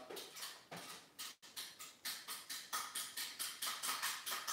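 A straight knife blade scraping the old ferrule off a golf club shaft in quick repeated strokes, about four or five a second.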